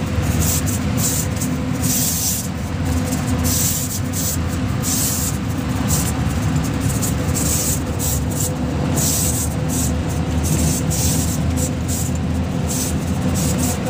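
Truck engine running with tyre and road noise while driving through a road tunnel: a loud, steady drone with a low hum.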